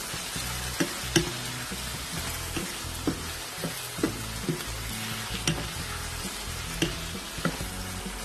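Bitter gourd slices in a tomato and yogurt masala sizzling in a frying pan while a wooden spatula stirs them, the spatula clicking against the pan now and then.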